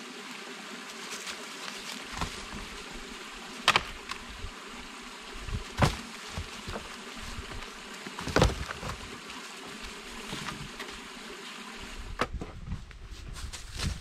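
A creek running steadily under several sharp cracks of dead wood being snapped and broken up, the loudest three about four, six and eight seconds in. Near the end, footsteps on dry fallen leaves.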